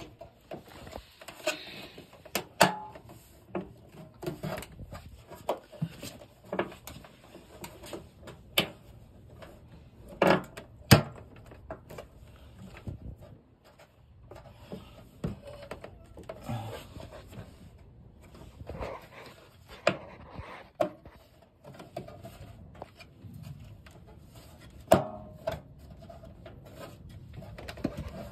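Plastic dryer front-panel parts being handled and pushed into place by hand: irregular knocks, clicks and rattles of plastic on plastic, with two sharp knocks about ten seconds in and another near the end.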